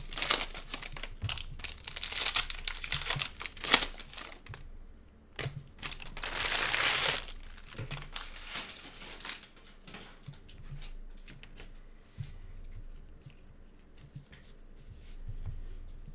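Foil wrappers of Panini Mosaic football card packs crinkling and tearing as packs are opened and handled, with one longer, louder rip about six seconds in, then quieter rustling and card handling.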